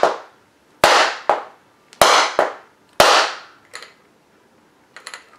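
Inertia hammer bullet puller being struck down hard three times, about a second apart. Each sharp strike rings briefly and is followed by a lighter knock, and two faint clicks come near the end. This is the work of knocking the bullet out of a heavily crimped .41 Magnum factory round, and the bullet has not yet come free.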